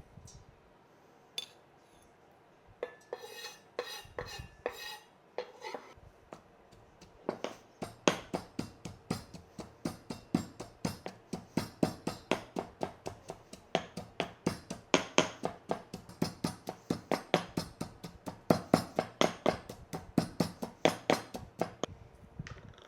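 Kitchen utensils and dishes clinking a few times, then a steady run of sharp knocks, about three or four a second, of a knife chopping on a cutting board.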